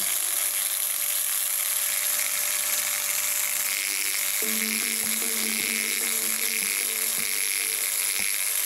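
Small high-speed handheld rotary tool, a pencil-type grinder, whining steadily with a hiss as it works a marble bust. Soft background music with a stepping melody comes in about four and a half seconds in.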